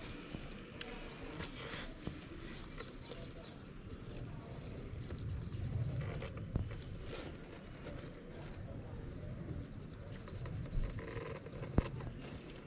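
RC rock crawler working slowly down a rock ledge: faint scraping, rubbing and clicking of tyres and chassis on the stone, with a low rumble that swells around the middle and sharp clicks now and then.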